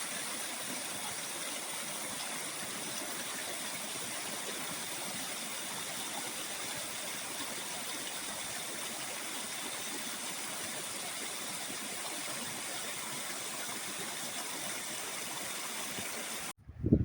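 Steady rush of fast-flowing water in a mountain stream. The sound cuts in and cuts off abruptly.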